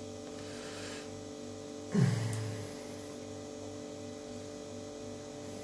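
Steady electrical hum made of several constant tones over a low pulsing throb, broken about two seconds in by one short, sudden low knock that fades over about half a second.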